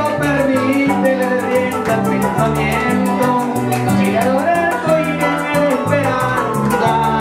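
Live Venezuelan llanero music: a harp and a cuatro plucking the melody and chords over a walking bass guitar, with a fast, even shaking rattle of maracas keeping the beat.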